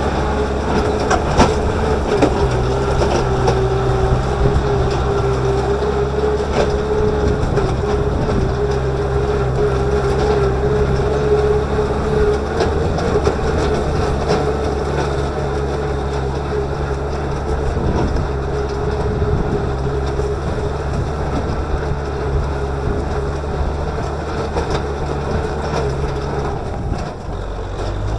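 Kubota M6040SU tractor's diesel engine running steadily under load while pulling a disc plow through the soil, with a steady whine over it. A few knocks stand out now and then.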